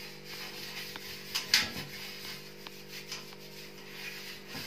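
A hand rubbing cooking oil over a metal baking tray: faint rubbing with a few light ticks against the metal, over a steady low hum.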